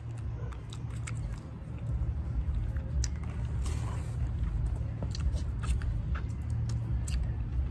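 Eating crab legs by hand: the shells crack and snap as they are bent apart, with biting and chewing of the meat. The clicks come irregularly over a steady low rumble.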